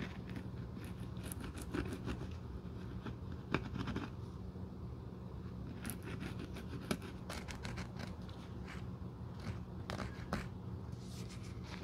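A thin metal tool scratching and ticking against the cracked cork heel of a Birkenstock footbed as it is worked into the gap under the liner, in small irregular strokes. A low steady hum runs underneath.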